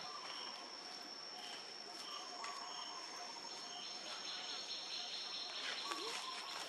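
Steady high-pitched insect trill, one unbroken tone, over a faint outdoor background with a few short, faint chirps.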